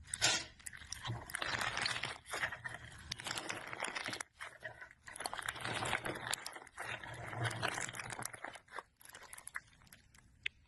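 Slime being squeezed and pressed by hand: a dense run of crackling and popping, broken by a few short pauses.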